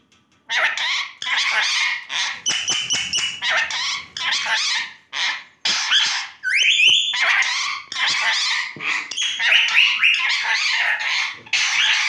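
Indian ringneck parakeet chattering and screeching at its reflection in quick loud bursts, starting about half a second in, with a couple of rising whistles about six and a half seconds in.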